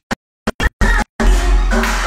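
Music chopped into short bursts with silence between them, a stuttering break, then the full track carries on a little after a second in.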